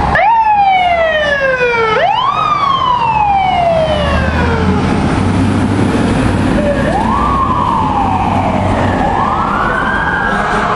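Fire apparatus sirens wailing on a response: two strong sweeps that rise sharply and fall away slowly over about two seconds each, then after a short gap two softer wails. Under them runs the low rumble of the fire truck's engine.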